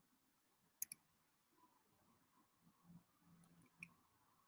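Computer mouse clicks in near silence: two quick clicks about a second in and another near the end, as the presenter tries to start an embedded video that won't play.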